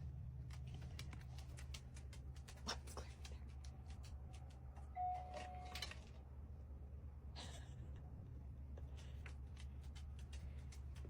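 Button-operated treat-dispensing dog toy being worked: scattered light clicks and rattles of treats and kibble, with a short beep about five seconds in. A steady low hum runs underneath.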